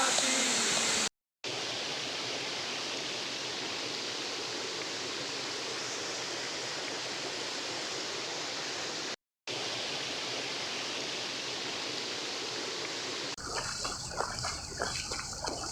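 Steady rushing water of a waterfall, an even hiss that breaks off twice for a split second. Near the end it gives way to a quieter background with uneven knocks and clicks.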